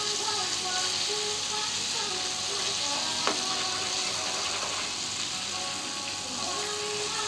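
Butter sizzling and foaming as it melts in a small non-stick pan on a hot plate, pushed around with a metal spoon; one sharp clink of the spoon against the pan about three seconds in. Background music plays under it.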